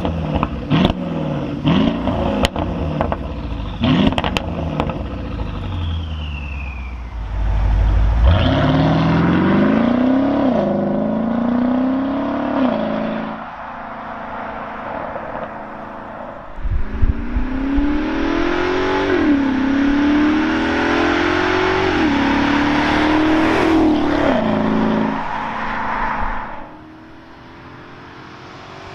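Mercedes-Benz S500 Coupe's twin-turbo V8 through a Brabus sport exhaust with its valves open: a few short throttle blips with sharp pops and crackles, then a full-throttle pull with the note rising through two upshifts. A second hard acceleration follows, rising through three gear changes, then the sound drops away near the end.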